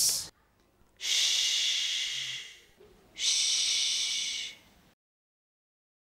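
A child saying the 'sh' phonics sound as a pure, held 'shhh' with no 'uh' vowel after it. The tail of one 'shhh' comes right at the start, then two long ones follow, about a second and three seconds in.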